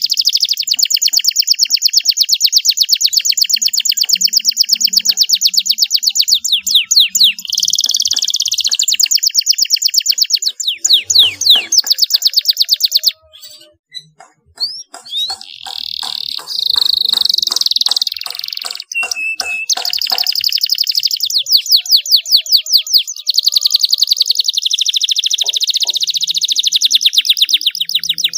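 Domestic canary singing in long, very fast trills that change from phrase to phrase, with a brief pause about halfway through.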